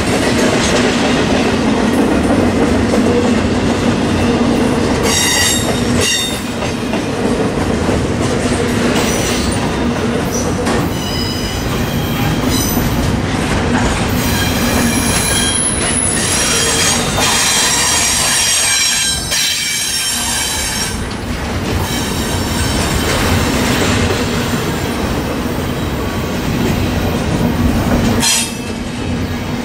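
A train rolling past close by, a steady loud rumble of wheels on rail with high-pitched wheel squeal coming and going many times.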